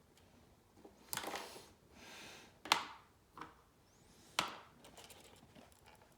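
Handling noises of small parts and tools on a workbench: four sharp clicks and knocks spread over a few seconds, with brief rustling between them.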